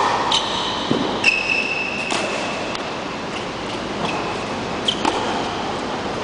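Tennis balls struck with a racket: about five sharp hits, four in the first two seconds and one near five seconds, several followed by a high ringing ping. Steady background noise throughout.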